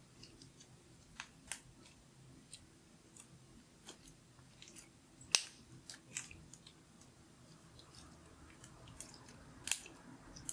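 Glitter slime being pressed and stretched by hand, giving irregular sticky clicks and small pops, with a louder pop about five seconds in and another near the end.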